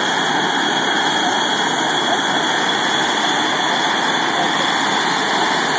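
Blue Angels F/A-18 Hornet's twin turbofan engines running at taxi power as the jet rolls out: steady loud jet noise with a thin high whine.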